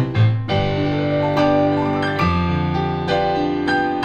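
Electronic keyboard played with both hands: sustained chords over a deep bass note, changing every second or so, with a new low chord struck about halfway through.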